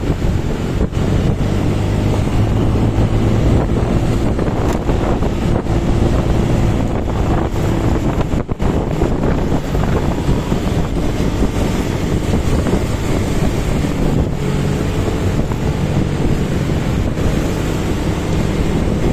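Wind buffeting the microphone of a moving motorcycle, over a steady low engine hum and road noise.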